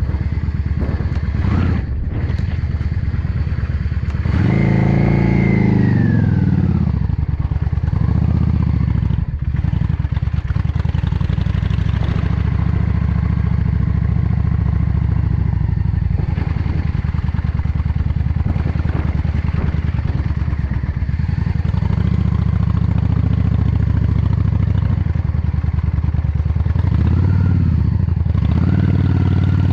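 Yamaha XVS 650 Drag Star Classic's air-cooled V-twin engine running at low road speed. Its note swells with throttle and falls back about four seconds in, briefly again a few seconds later, and twice near the end.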